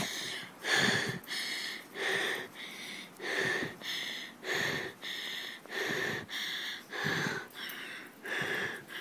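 A person breathing loudly and heavily close to the microphone, one noisy breath about every second and a bit.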